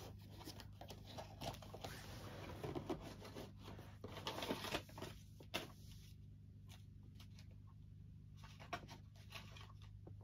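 Paper rustling and crinkling as craft pieces are handled and sorted, with a few light taps and clicks, busier in the first half and sparser after, over a low steady hum.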